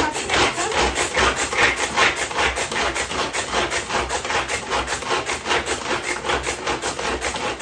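Hand-operated plastic food chopper being worked with rapid, even strokes, its blades scraping and grinding garlic and ginger into a paste, roughly four strokes a second.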